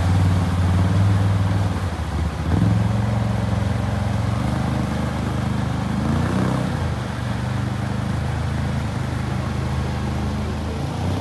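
ATV engine running as the quad drives through deep floodwater, with the rush of its wake. The engine note drops out briefly about two seconds in and rises again around six seconds.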